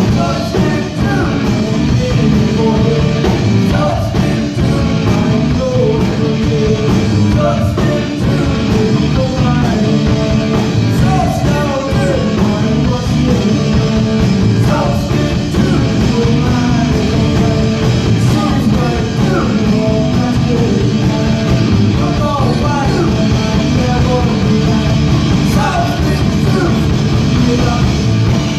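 Loud rock music with a singing voice over a full band, playing steadily throughout.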